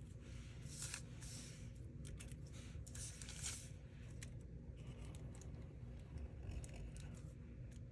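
Black marker tip rubbing over paper as lines are traced, in short faint scratchy strokes, the clearest about a second in and about three seconds in, with small ticks between them.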